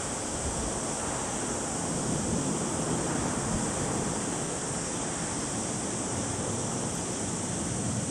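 Steady rushing roar of an Airbus A320's jet engines as it departs, swelling slightly about two seconds in, with a steady high hiss over it.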